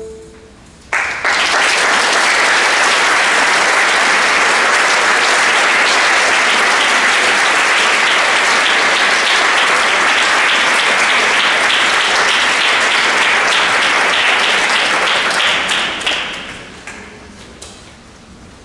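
Audience applauding: the last held note of the chamber ensemble dies away, then clapping starts about a second in, holds steady, and fades near the end into a few scattered claps.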